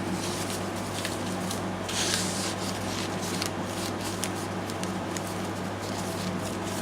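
Paper pages and tags of a handmade journal rustling and being handled as they are turned, with a louder rustle about two seconds in. Under it runs the steady hum of an air conditioner.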